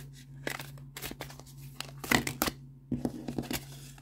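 A deck of stiff oracle cards being handled in the hands, the fanned cards slid and flicked against each other as one is picked out. It makes an irregular string of short papery clicks and snaps.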